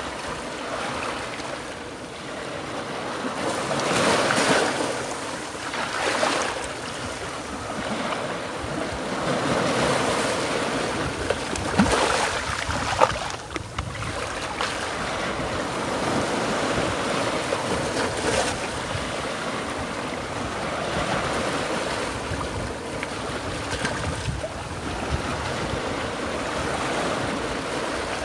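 Small Gulf of Mexico waves washing up over sand and around rocks at the shoreline, the wash swelling and easing every few seconds. Two short sharp clicks stand out about halfway through.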